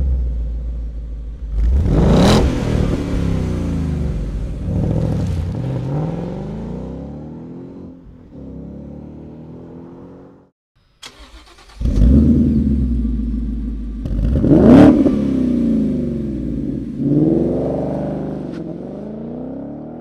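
2015–2017 Ford Mustang GT's 5.0 L V8 revving through its stock exhaust, several throttle blips with the pitch falling back after each. After a brief cut about halfway through, the same engine revs again through a Borla Touring exhaust.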